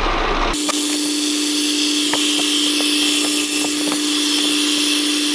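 Metal lathe spinning a brass rod while a clamp-type knurling tool presses its wheels into it, with the sound sped up tenfold. A steady hiss with a steady hum and scattered ticks starts abruptly about half a second in.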